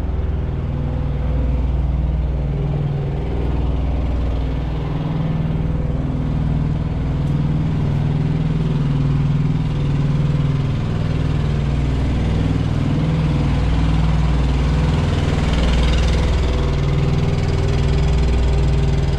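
A truck engine idling steadily, a low even hum. A wider swell of noise rises and fades about three-quarters of the way through.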